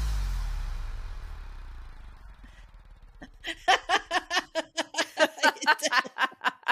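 Electronic outro music dying away, then from about three seconds in a woman laughing in quick repeated bursts, several a second.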